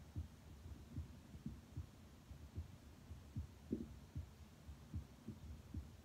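Human heartbeat heard through a stethoscope chest piece on the chest: faint, regular lub-dub double thumps, a little under one per second, over a low steady hum.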